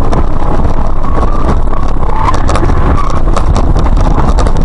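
Loud, steady low rumble of a car driving: road and wind noise, with scattered short knocks and rattles.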